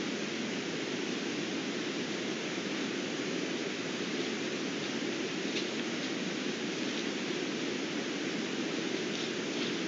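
Steady hiss of a trail camera's recording noise, with a few faint ticks in the second half.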